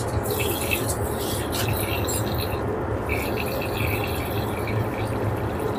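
An aircraft lavatory's push-top tap runs water into the small metal wash basin and over a hand. The stream thins briefly about halfway, then carries on, over the steady drone of the airliner cabin.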